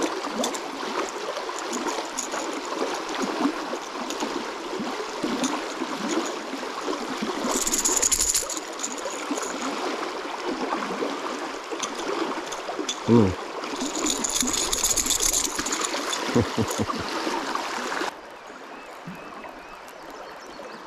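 Fast river current rushing steadily past a concrete bank, with a hooked bass splashing and thrashing at the surface in bursts. The rushing drops sharply to a quieter flow near the end.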